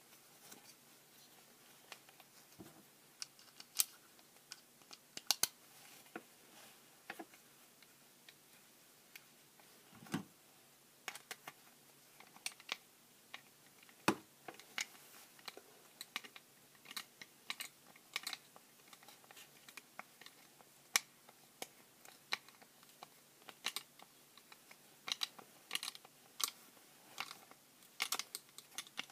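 Irregular light clicks and taps of small plastic RC-kit parts and screws being handled and fastened with a hex driver.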